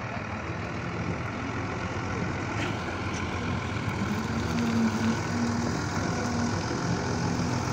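Harmeet combine harvester's diesel engine and machinery running steadily, a low, even hum that grows slightly louder, with a higher held engine note coming in about four seconds in.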